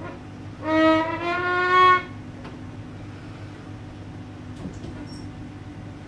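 Violin playing two long bowed notes, the second slightly higher, then falling silent about two seconds in; a steady low hum runs underneath.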